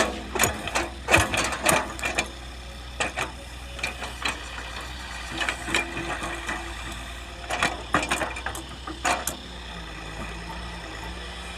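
Excavator working: its engine runs steadily under irregular metallic clanks and knocks from the moving arm, bucket and tracks. The knocks come in clusters, heaviest at the start and again after about seven and a half seconds, then give way to the engine alone near the end.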